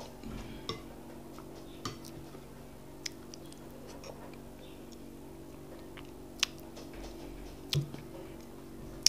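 Close-up eating sounds as custard is spooned from a glass bowl and eaten: scattered sharp wet mouth clicks and spoon taps, two of them louder near the end, over a steady low hum.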